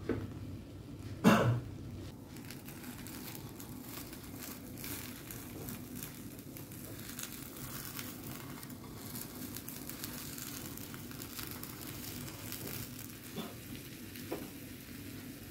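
Egg mixture sizzling quietly in a square nonstick omelette pan on a portable gas stove, with utensils scraping and tapping the pan as the omelette is rolled. A sharp knock about a second in, and two lighter taps near the end.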